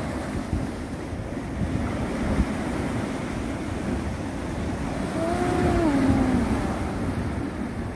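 Sea waves washing against a breakwater's concrete tetrapods, with wind on the microphone. About five seconds in, a faint pitched call rises and falls for about a second.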